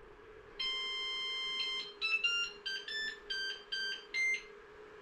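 Flashforge Adventurer 5M Pro 3D printer's start-up chime from its built-in speaker as it boots. It plays a held electronic tone for over a second, then a quick run of about seven short notes at different pitches, over the steady hum of the powered-on printer.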